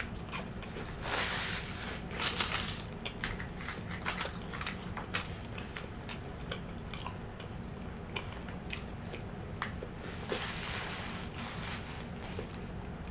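Close-up eating sounds: chewing and crunching of flaky, buttery chicken pot pie crust, with short clicks of a spoon against the pie. There are louder crunchy stretches about a second in and again near the end.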